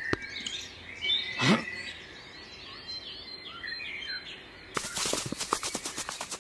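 Forest ambience of small birds chirping, with a single whooshing glide about a second and a half in and a fast run of clicks over the last second and a half.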